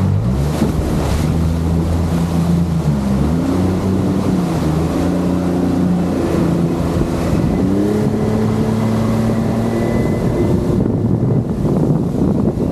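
Boat motor running underway, its pitch shifting up and down, over wind on the microphone and water rushing past the hull. Near the end the engine tone drops away, leaving mostly wind and water noise.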